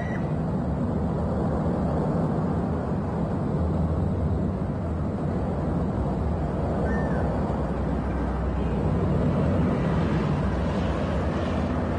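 Steady low rumble from the Cumbre Vieja eruption's lava-fountaining vents, an even roar without breaks.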